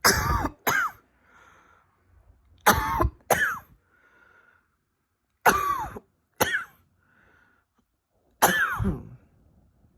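A woman coughing in four bouts a few seconds apart, the first three each a pair of coughs and the last a single longer cough that trails off, with soft breaths drawn in between.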